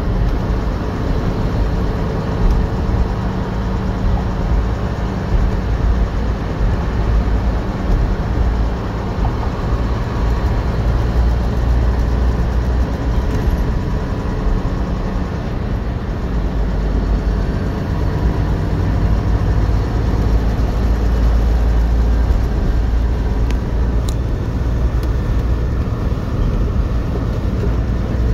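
Steady engine drone and road noise heard from inside the cab of a truck cruising at highway speed, mostly a low hum.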